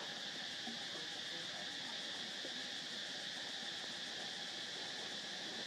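Steady chorus of insects, a continuous high-pitched drone that holds at one level throughout.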